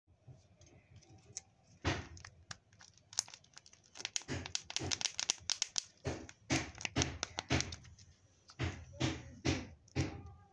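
Plastic surprise-egg candy package handled and its printed wrapper peeled back from the shell: a run of irregular crinkling and tearing crackles with sharp plastic snaps, busiest in the second half.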